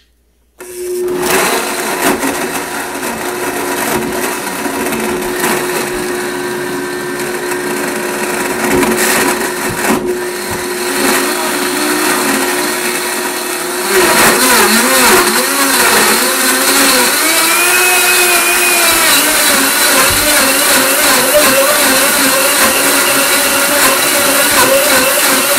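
Blendtec Total Blender with a WildSide jar running, blending whole carrots, leafy greens and fruit down to a green smoothie. It starts about half a second in and runs steadily, then gets louder about halfway through, its pitch wavering up and down for a few seconds.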